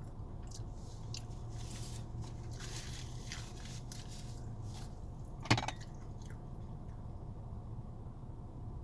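Close-up chewing and biting of a burrito: wet, squishy mouth sounds in short irregular bursts, with one sharp click about five and a half seconds in. A low steady hum runs underneath.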